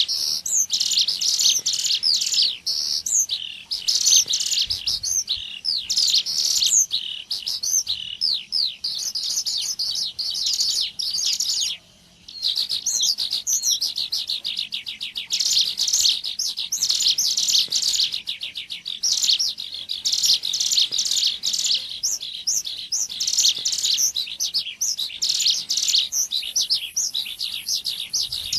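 Dense, continuous chirping and rapid trills of bar-winged prinias (ciblek gunung) from a bird-lure recording. The calls are high and fast-repeating and break off briefly about twelve seconds in.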